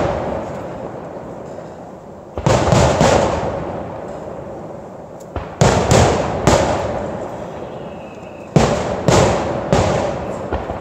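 Aerial firework shells bursting in groups of three or four sharp bangs about every three seconds, each group fading away over a couple of seconds as the reports echo.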